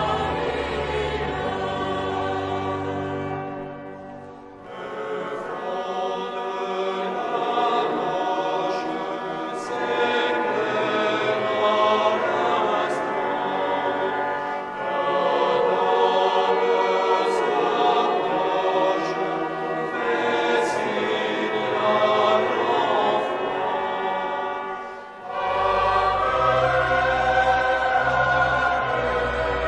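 Choral music: a choir singing. The sound dips briefly about four seconds in and again about 25 seconds in, where the music changes.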